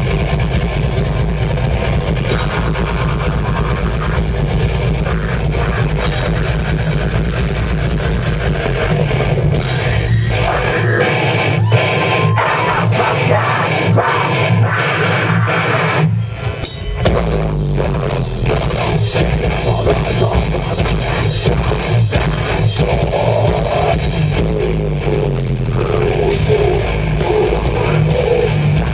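Rock band playing loud live, with electric guitars and a drum kit. About ten seconds in the deep bass drops out for several seconds. After a short break the full band comes back in.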